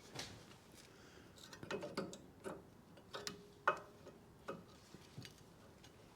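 Light metallic clicks and clinks of new brake pads being seated and wobbled in the caliper carrier's anti-rattle shims: about a dozen irregular taps, the loudest just past the middle with a short ring.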